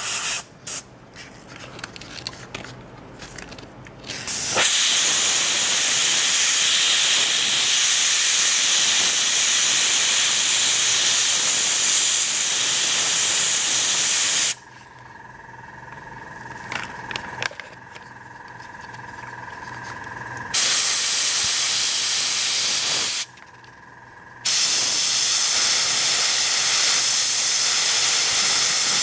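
Dual-action gravity-feed airbrush spraying paint, a loud, even hiss of air. It comes in three stretches: the first, starting about four seconds in, lasts about ten seconds, then two shorter ones follow with pauses between. A faint steady tone can be heard in the pauses.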